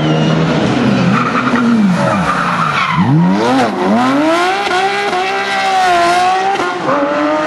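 Porsche 911 GT3 rally car's flat-six engine revving hard. The pitch swoops sharply down and back up several times around the middle, as with gear changes and lifts, then climbs steadily and drops again near the end.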